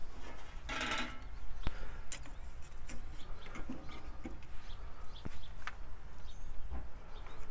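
Metal spatula scraping and clinking against the Akorn kamado's cast-iron cooking grate as a smoked chicken is pried up and lifted off, with one longer scrape about a second in and scattered light clicks and knocks after it.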